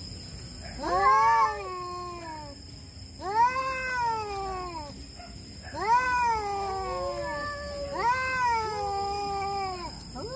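Two tabby cats caterwauling at each other in a territorial standoff: about four long yowls, each rising and then falling in pitch over a second or two.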